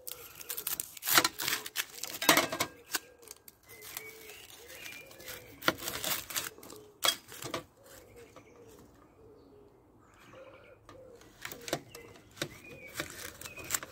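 Dry onion skin crackling and tearing as it is peeled off with a small knife over a ceramic plate, in a run of sharp, irregular crackles and scrapes that ease off for a moment just past the middle. A bird calls in the background.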